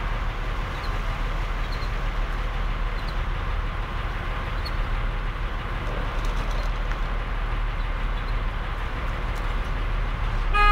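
Floodwater rushing down a street, a steady even rush. A car horn sounds near the end.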